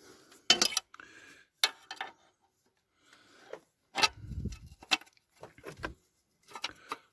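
Scattered sharp clicks and knocks of small parts and tools being handled, about seven in all, with a duller thud about four seconds in.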